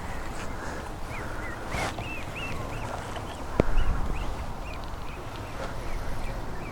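Waterfowl calling in a run of short, high, repeated calls, with a sharp knock about halfway through.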